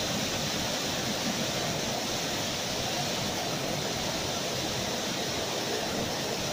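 Spring-fed stream water rushing down a wide, shallow cascade over dark rocks, heard close up as a steady, unbroken rush.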